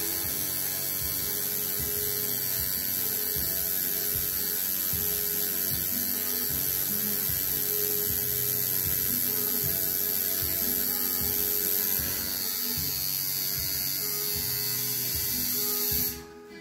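Home-rebuilt coil tattoo machine buzzing steadily as it drives a single needle into skin, lining small lettering. It cuts off suddenly near the end.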